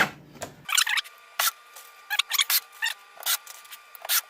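A cordless drill driving a wood screw into a rack rail stops about half a second in, followed by a string of short, irregular scraping and rubbing handling noises against the wooden frame.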